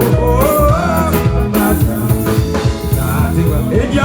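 Loud live band music: drum kit and bass under a sung melody line that bends in pitch in the first second or so.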